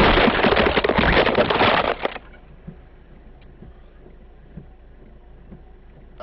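Car crash heard through a dashcam inside the car: a loud crunching, clattering impact lasting about two seconds, then a quiet low rumble with a few faint knocks.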